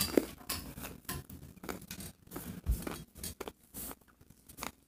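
Handling noise from a handheld phone: irregular rustles, scrapes and clicks, the sharpest right at the start.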